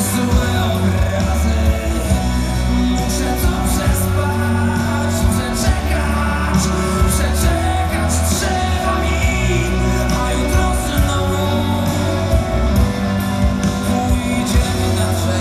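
Live rock band playing a slow song with a singer, electric guitar, bass, keyboards and drums, with cymbal strikes, heard from the audience.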